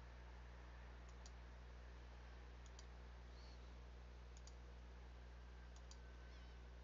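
Near silence: a steady low electrical hum with four faint double clicks about a second and a half apart, a computer mouse button pressed and released as polyline points are placed.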